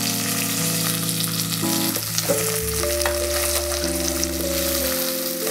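Sweet corn and garlic frying in oil in an aluminium pot, sizzling steadily as a wooden spoon stirs and scrapes through it.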